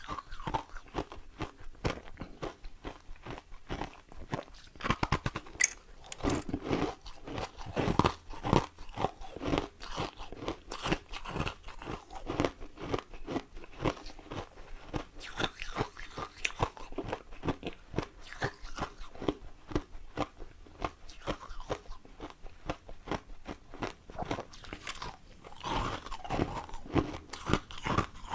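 Close-up ice eating: biting and chewing ice, a rapid series of crunches and crackles as the ice breaks up in the mouth, with a few louder bites.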